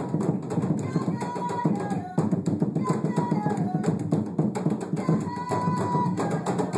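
Hand drums, djembe-style goblet drums, played by several drummers in a dense, fast rhythm. Long, high notes from a singing voice slide and bend over the drums.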